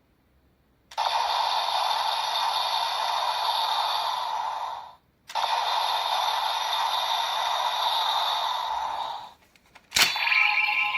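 Electronic sound effects from the DX Ultraman Tiga Victory Key toy's small speaker: two long, steady hissing sounds of about four seconds each with a short break between them, then a sharp click near the end.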